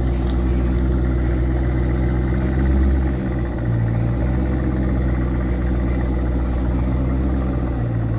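Car engine idling with a low, steady rumble that swells briefly about three seconds in.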